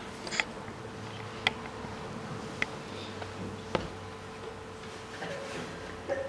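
Quiet room tone with a steady electrical hum, and a few faint sharp clicks about a second apart.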